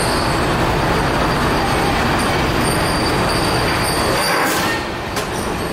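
Ferry's engines and machinery running with a loud, steady rumble and hiss. The noise dips briefly a little over four seconds in, and there is a sharp click near the end.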